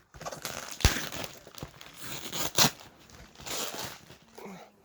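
Shipping box being opened by hand: paper and tape tearing and crinkling in irregular rustles, with a sharp knock about a second in.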